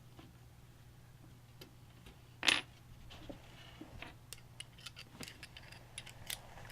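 Small metal clinks and clicks of screws being handled and driven into a computer case during assembly: one sharp, ringing clink about two and a half seconds in, then a run of light ticks and taps.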